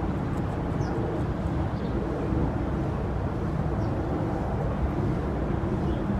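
Steady low rumble of outdoor background noise, with a few faint, short, high chirps of small birds scattered through it.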